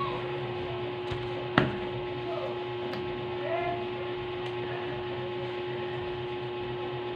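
A steady electrical hum with a constant tone, and one sharp click about one and a half seconds in.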